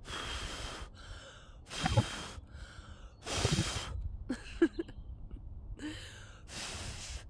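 A person blowing on dandelion seed heads: four long puffs of breath, with softer breaths taken in between.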